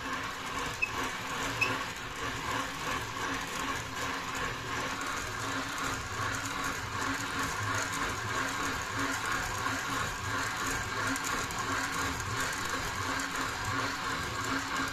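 Tescoma Handy hand-cranked poppy seed mill grinding poppy seeds between its ceramic burrs: a steady grinding noise as the crank is turned.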